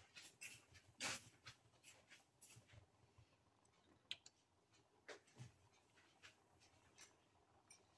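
Near silence, broken by faint, irregular small pops and ticks from a pan of milk tea with cardamom pods and tea leaves simmering, the loudest about a second in.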